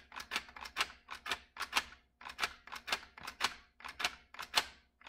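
Lego brick pistol's trigger pulled over and over, its blowback slide snapping back and forth: a run of sharp plastic clicks, about three or four a second.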